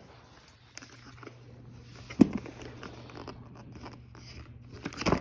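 Toy packaging being handled and opened: scattered plastic and cardboard crinkles and clicks, a sharp knock about two seconds in, and a quick run of clicks near the end.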